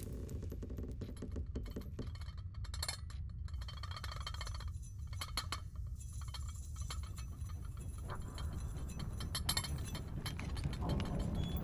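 Light, scattered clinks and taps of china cups, saucers and a metal spoon, over a steady low rumble of room tone.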